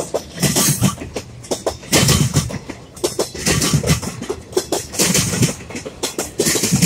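Intermodal container freight train rolling by, its steel wheels clunking heavily over the rail joints every second or so above a steady rumble. The rail there moves up and down under the passing weight, a worn rail section that needs replacing.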